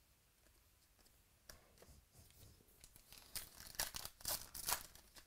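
A foil trading-card pack wrapper being ripped open by hand, heard as a quick run of short, crinkly tearing sounds from about three seconds in. Before that come only a few faint clicks of cards being handled.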